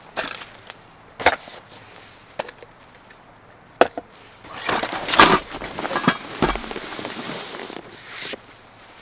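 Camp gear being set down on a slatted bamboo table: a few sharp knocks. Then, about four and a half seconds in, a longer rustling and scraping of fabric with a few thumps as a soft fabric storage cube is pushed under the table, stopping shortly before the end.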